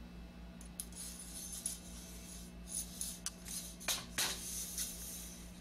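Light metallic clicks and clinks of parts of a Columbia automatic drywall taper being handled during reassembly, with two sharper knocks about four seconds in. A steady low hum runs underneath.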